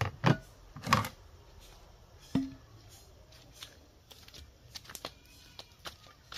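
Plates being set down on a plastic table: two sharp clacks in the first second and another about two and a half seconds in, then a few faint light ticks.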